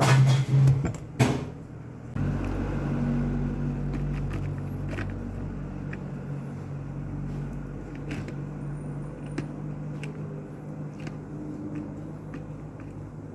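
A few loud knocks and clicks from handling the new Makita 9555HN angle grinder, then about two seconds in its electric motor starts and runs steadily with no disc load, a constant low hum that slowly eases in level.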